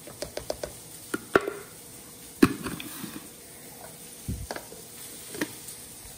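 A series of irregular light knocks and clicks, the loudest about two and a half seconds in.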